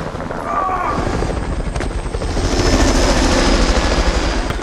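Helicopter rotor chopping with a rapid, steady beat under a rushing noise, growing louder about two seconds in.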